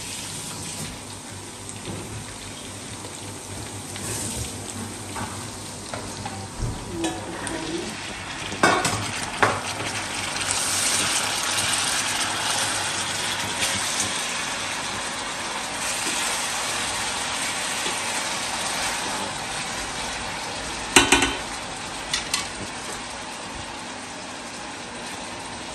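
Food frying in a pan, a steady sizzle that swells louder in the middle and then eases. A few sharp knocks sound twice about a third of the way in and twice more near the end.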